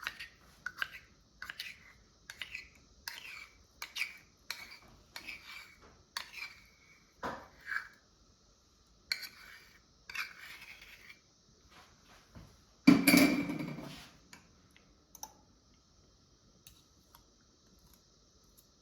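Utensil scraping and clinking against a measuring cup and mug as thick Nutella is transferred, a run of short scrapes and taps at about two a second, then one louder clunk about 13 seconds in.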